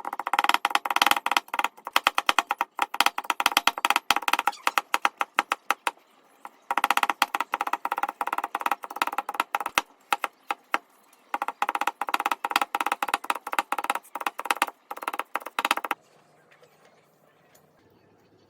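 Knife chopping rapidly on a wooden cutting board, many quick strokes a second, as potato is cut into thin matchsticks; it comes in three long runs with short breaks and stops about three seconds before the end.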